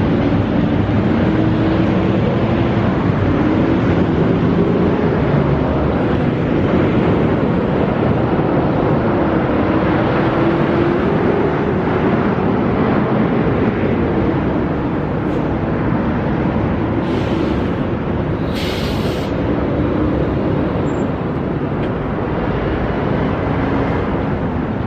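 Car driving at road speed: steady engine and road noise with a slowly wavering drone, and two brief hisses about two-thirds of the way through.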